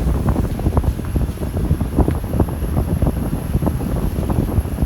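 A vehicle driving along a rough road: a steady low rumble with wind buffeting the microphone and many irregular knocks and jolts.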